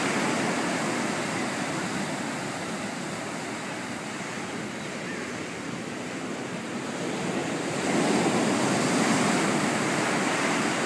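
Ocean surf breaking and washing in over the sand, a steady rush of white water that eases off in the middle and swells louder about eight seconds in as another wave surges up.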